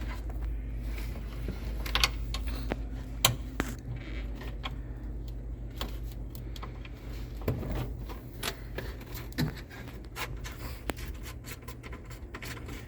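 Irregular light clicks, scratches and metal taps of a hand wrench working the 7/16 bolts out of a car's quarter-window glass inside the body panel, with a steady low hum underneath.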